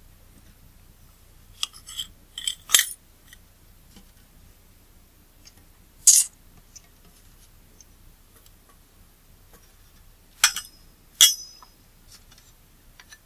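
Small disassembled lens parts, the oily aperture blades among them, clinking into a small cup: scattered sharp clinks with brief ringing, a quick group about two to three seconds in, one about six seconds in and two more near eleven seconds.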